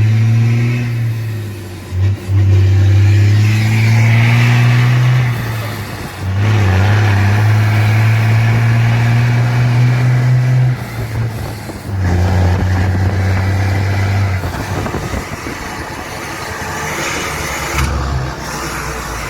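Loaded diesel truck with a straight-pipe exhaust, pulling hard with a loud, deep drone. The drone breaks off briefly about three times, then eases to a lower, quieter running in the last few seconds.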